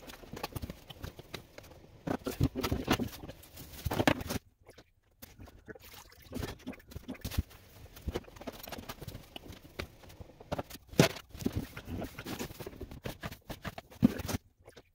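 Irregular knocks, clatters and scraping of gloved hands and tools working dirt and debris out of a sailboat's bilge, with two short pauses, about four seconds in and near the end.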